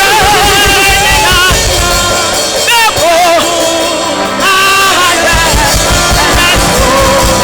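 Worship music: singing over a band with a pulsing bass.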